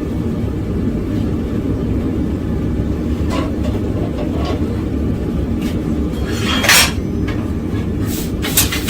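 Propane forge burner running with a steady low rush, with a few light metal clinks and a short hiss about seven seconds in.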